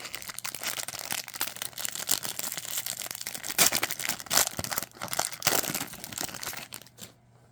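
Foil wrapper of a Topps Series 1 Jumbo baseball card pack crinkling and tearing as it is opened, with a run of sharp crackles that dies away near the end.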